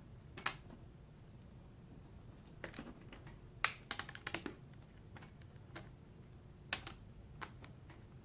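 Irregular sharp plastic clicks and taps as a laptop's plastic cover is handled, hooked in and pressed into place on the casing, about ten in all, loudest a little past the middle and near the end.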